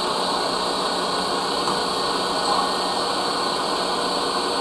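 Electric stand mixer running steadily at speed, its beater creaming butter and sugar as eggs are beaten in.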